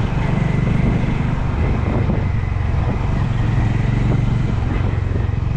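Motorcycle engine running steadily under way at an even speed.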